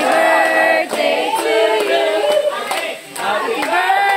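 A group of voices singing together, several at once, with a short break about three seconds in.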